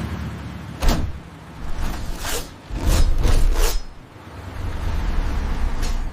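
Action-film sound effects: a run of sharp, sudden hits over a low rumble, four of them in quick succession about two to four seconds in.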